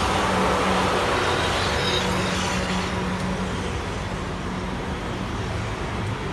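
South Western Railway Class 444 Desiro electric multiple unit rolling into the platform, wheels running on the rails with a steady low hum from the traction equipment. The sound eases off slightly as the train slows.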